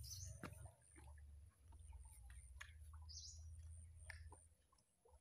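Near silence: a bird gives a short, high chirp twice, about three seconds apart, over a faint low rumble and soft clicks and rustles from fingers working bait onto a hook.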